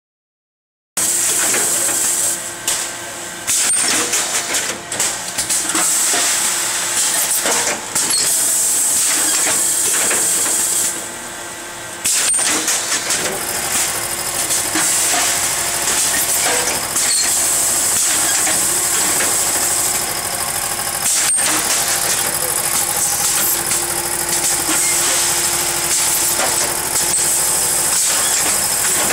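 Automatic form-fill-seal weighing and packing machine running: a loud, steady mechanical noise with a high hiss and scattered sharp clicks and knocks from its pneumatic sealing mechanism. It starts about a second in.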